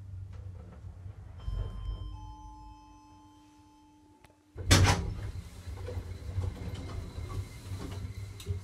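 Passenger lift arriving at a floor: a low running hum, then a two-note arrival gong that rings for about three seconds. A loud clunk follows about 4.7 s in, then the rattle of the doors sliding open.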